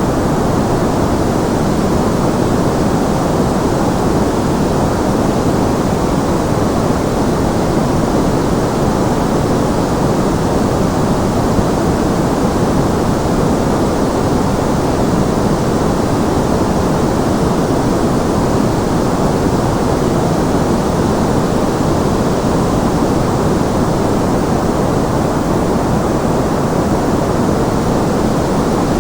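Steady synthetic white noise, a constant muffled rush with little treble, unchanging throughout.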